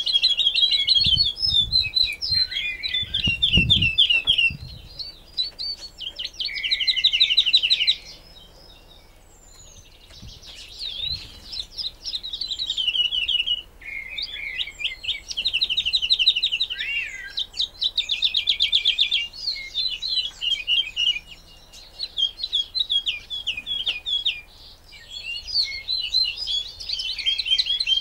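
Caged woodlark singing: phrases of rapidly repeated fluty notes and trills, many falling in pitch, with short pauses between phrases. A few low bumps come about three seconds in.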